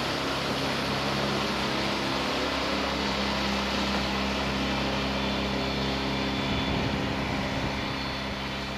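Small outboard motor on an open boat running at speed past the listener, a steady drone that eases slightly near the end as the boat moves off.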